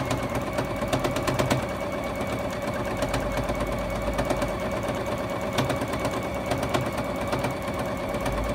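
Juki HZL-F600 domestic sewing machine running at a steady speed, its needle stitching rapidly and evenly through the layers of a quilt during free-motion quilting.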